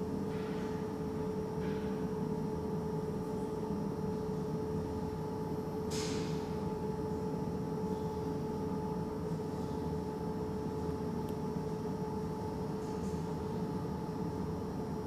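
A steady mechanical hum, one constant tone over a low rumbling noise, with a short hiss about six seconds in.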